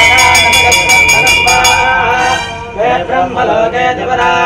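Large hanging temple bell rung rapidly during aarti, about six strokes a second, over men chanting; the ringing stops about two seconds in and the chanting carries on.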